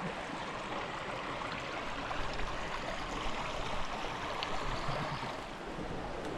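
Creek water running steadily over rocks, an even rushing with no breaks.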